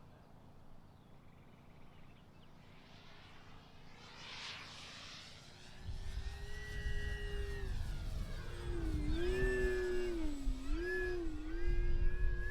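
Electric motor and propeller of an HSD Cessna 182 RC plane whining in flight, faint at first and louder from about six seconds in, its pitch dipping and rising a few times. A low rumble comes in with it.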